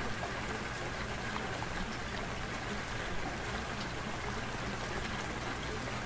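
Steady running-water sound, an even wash with faint scattered drip-like ticks, used as a masking background track.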